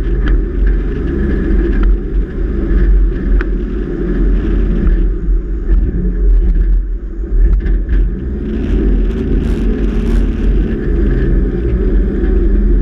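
Four-wheel-drive vehicle driving over soft beach sand, with a steady low rumble of engine and tyres.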